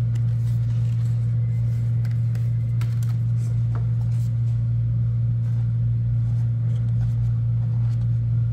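A steady low-pitched hum runs unchanged throughout. Over it come a few faint light clicks and rustles of cardboard packaging being handled.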